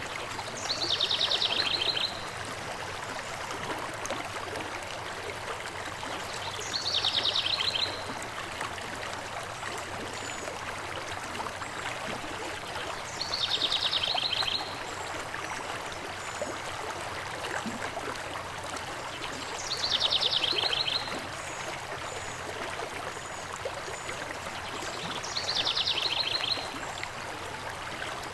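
Steady rushing of a river or stream, with a songbird singing a short, fast, high trill that drops in pitch, about a second long, five times at even intervals of about six or seven seconds. Faint high chirps from other birds come in between.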